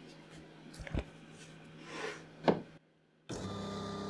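A couple of short wooden knocks from workpieces being handled, then, after a brief cut to silence, a workshop power tool's electric motor running steadily, a hum with several steady tones.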